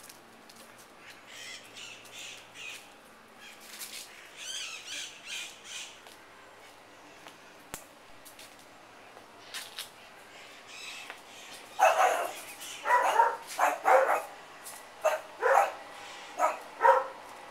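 Fainter high chirping calls in the first few seconds, then a run of loud, repeated animal calls, about eight in five seconds, starting about twelve seconds in.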